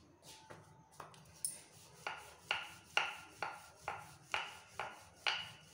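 Wooden rolling pin rolling out a methi paratha on a stone countertop: regular back-and-forth strokes, about two a second, starting about two seconds in.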